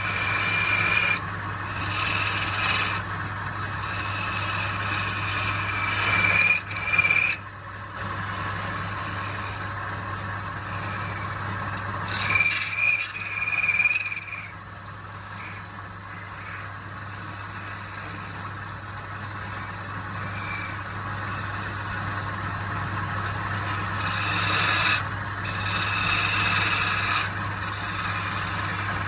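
A woodturning lathe running with a steady low hum while something rubs and scrapes against the spinning wood, with a high squeal in several stretches and quieter spells between.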